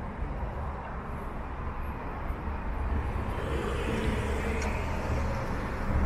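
City street traffic: a steady low rumble of passing vehicles that grows gradually louder in the second half.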